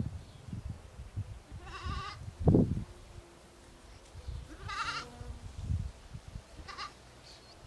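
Goats bleating: three wavering bleats about two, five and seven seconds in, the last one short. Low thuds are heard between them, the loudest just after the first bleat.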